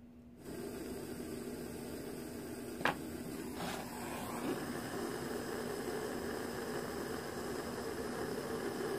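Gas soldering torch flame burning with a steady rushing hiss that starts suddenly about half a second in, with one sharp click about three seconds in.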